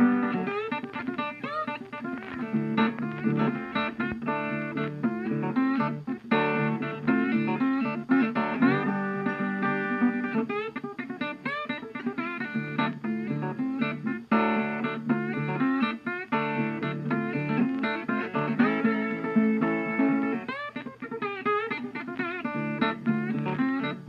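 Background music led by plucked acoustic guitar.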